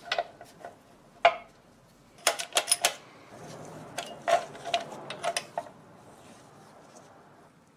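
Scattered light metallic clicks and clinks of steel parts being handled inside an automatic transmission case, around the front band and its strut: a single click about a second in, then a quick run of clinks a little after two seconds and another around four to five seconds.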